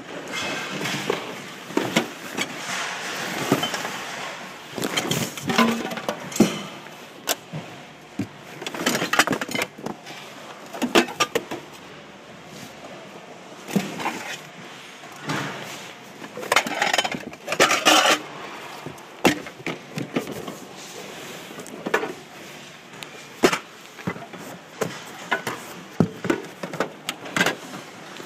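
Rummaging through a bin of mixed household goods: plastic, glass and ceramic items clatter and knock together at no steady rhythm, with rustling as things are pushed aside.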